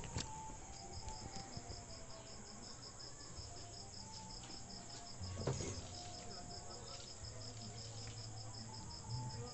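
Insect chirping steadily, a high pulsing note about five times a second, with one knock about five and a half seconds in.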